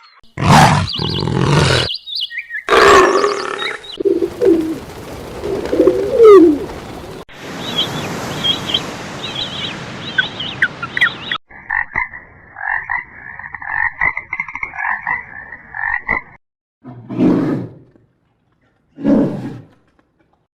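A series of different animal calls, cut one after another: several short calls, then a rapid rhythmic trill lasting about five seconds, then two short low calls near the end.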